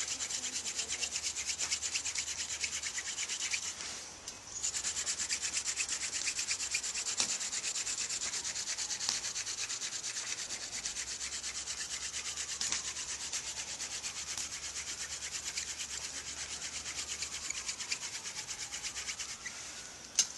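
Hand-drill friction fire: a Dame's Rocket flower-stalk spindle spun back and forth between the palms, grinding into a white pine root hearth board in a rapid, even rhythm of rubbing strokes. There is a brief break about four seconds in as the hands go back up the spindle, and the drilling stops near the end.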